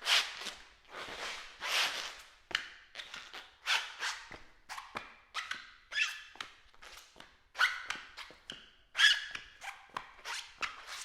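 Rubber-soled shoes walking, squeaking on a hard floor: a steady run of footsteps, roughly one or two a second, many of them with a short high squeal.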